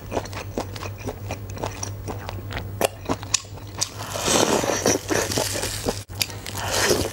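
Close-miked mouth sounds of eating chewy octopus tentacles: a run of wet biting and chewing clicks, louder and denser for a stretch about four seconds in as a big bite is taken.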